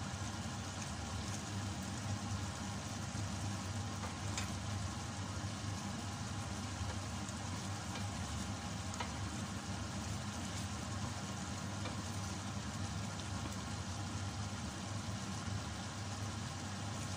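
Chicken adobo in coconut milk bubbling at a boil in a stainless steel pot, stirred with a wooden spoon, with a few light knocks of the spoon against the pot. A steady low hum runs underneath.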